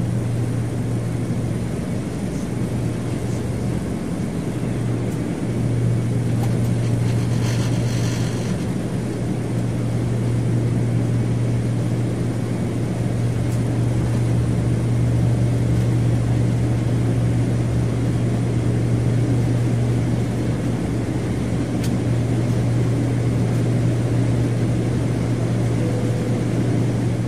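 Passenger airplane in flight: a steady low engine drone with a constant hum over broad rumbling noise. A brief hiss comes about eight seconds in.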